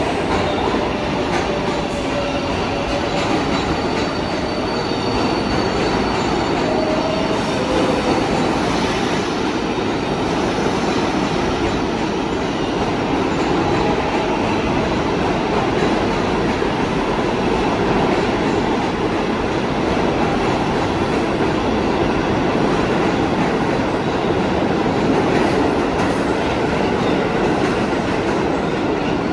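Kawasaki R188 subway cars rolling through an underground station at steady speed: a continuous rumble and rattle of steel wheels on the rails, with a few brief, faint wheel squeals in the first several seconds.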